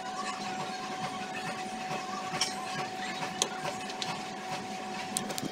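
Graphite pencil scratching on drawing paper on a clipboard during shading, with a few sharp clicks and a steady high hum underneath.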